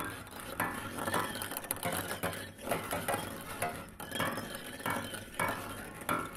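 A dense, irregular clatter of small hard objects clinking and rattling, with many quick knocks.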